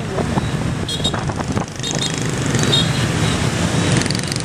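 Busy street traffic: many motorbike and car engines running close around, with a few short high beeps about a second in and again near the middle.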